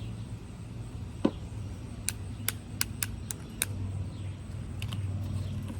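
Sharp plastic clicks and taps of lip gloss tubes and caps being handled: one about a second in, then a quick run of clicks between about two and four seconds in, and another near five seconds, over a low steady hum.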